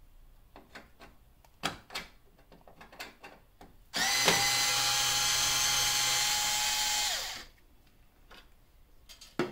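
Hand-held cordless electric screwdriver backing out a Torx screw from a Jeep Wrangler's headlight retaining ring. Light clicks come first as the bit is set on the screw. About four seconds in the motor starts, runs with a steady whine for about three seconds, then winds down.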